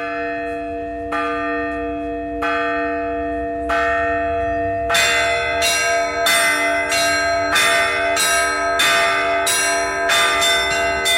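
Russian Orthodox tower bells ringing a festive Easter trezvon. It opens with single strokes about a second apart, then from about five seconds in several bells of different pitch join in a quicker, fuller peal.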